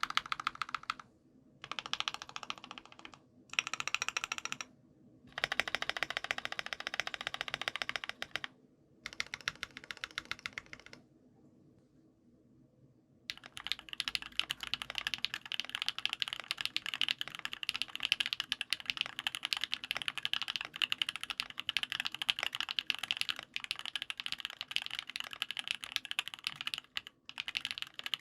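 Typing on an OwLab Voice65 gasket-mount keyboard with an aluminium plate, lubed and filmed C³ Tangerine linear switches and Infinikey keycaps. Several short runs of rapid keystrokes come with brief pauses between them. After a quiet pause of about two seconds, steady continuous typing runs from about halfway through.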